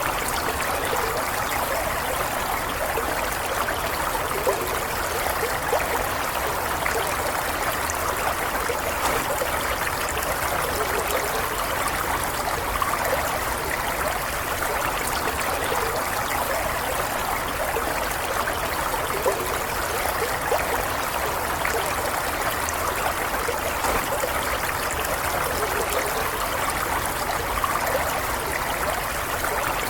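Stream water flowing steadily, an even rushing and trickling with no change in level.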